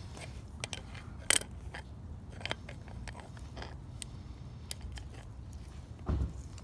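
Screw-type chain breaker being cranked against a pit bike chain's link pin, giving off scattered metal clicks and creaks, the sharpest about a second in. A dull thump comes near the end.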